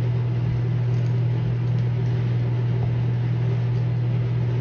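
A steady, unchanging low hum with a faint hiss over it.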